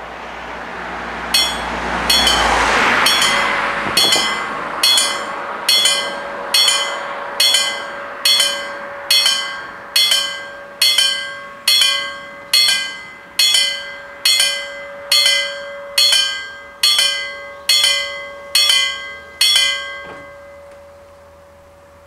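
Level-crossing warning bells striking steadily, a little more than once a second, while the barriers lower for an approaching train; the ringing stops once the barriers are down. A rush of noise swells and fades in the first few seconds.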